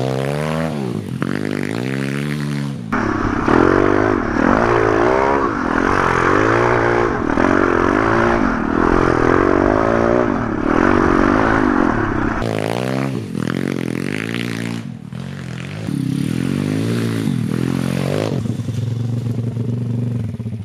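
MRF 140 RC pit bike's 140 cc four-stroke single-cylinder engine being ridden hard through tight turns on a slushy snow trail. It revs up and drops back over and over, the pitch rising and falling with each throttle blip and shift. The middle stretch is louder and rougher, heard from on the bike itself.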